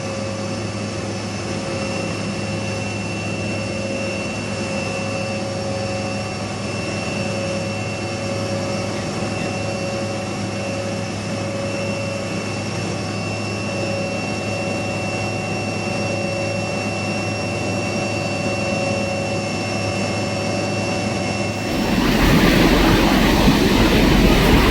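Military helicopter's turbine engine and rotor running steadily, a constant whine with a steady hum beneath it. About 22 seconds in it changes abruptly to louder, rougher rushing noise.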